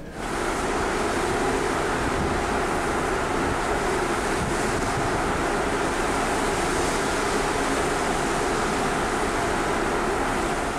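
Steady rushing noise of wind and sea on the open deck of a ferry under way, unchanging throughout.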